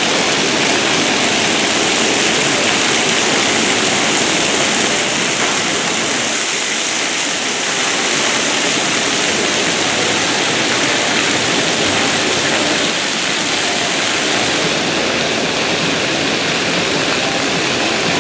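Steady, loud rush of running water from the aqua park's slides and spray features, an even hiss with no separate splashes.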